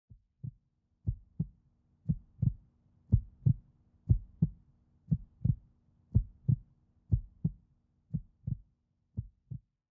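Recorded heartbeat: paired low thumps, lub-dub, about one beat a second, over a faint steady hum. The beats stop just before the end.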